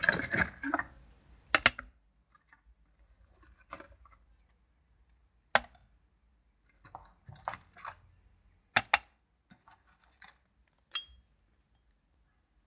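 Bicycle crank arms, spindle and bolts being set down and shifted on a glass-topped kitchen scale: a dense clatter of handling in the first second or so, then separate sharp clicks and knocks of metal on glass, a couple of them in quick pairs, spaced a second or two apart.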